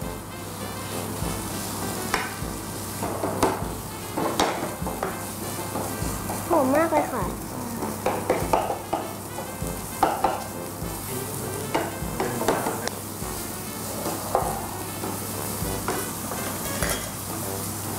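Minced pork and diced onion sizzling in butter in a nonstick frying pan, stirred and scraped with a wooden spatula in irregular strokes.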